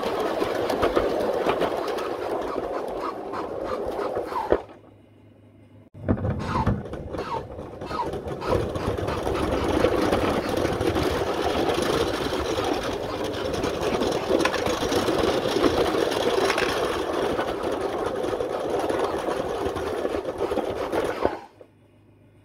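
Large-scale Bachmann model train rolling along plastic track, its wheels and motor making a steady clattering run with fine clicking, heard close up from a camera riding on one of the cars. The sound cuts out for about a second and a half around five seconds in, then resumes and stops abruptly about a second before the end.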